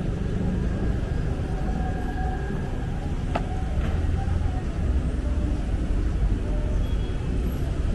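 City street traffic with a steady low rumble; a car drives close past about midway.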